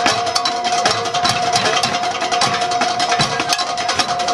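Live percussion-led band music: fast, dense drum and percussion hits with a steady held tone underneath.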